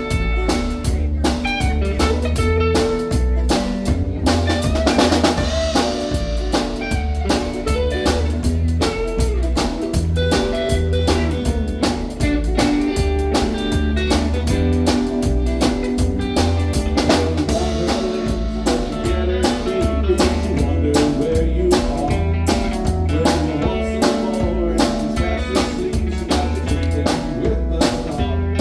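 Band music in a blues-rock style: a drum kit keeps a steady beat under guitar.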